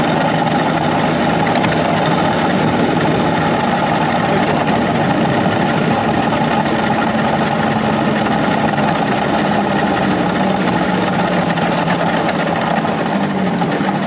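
Snowmobile engine running steadily under way across lake ice. Its pitch drops a little in the last few seconds.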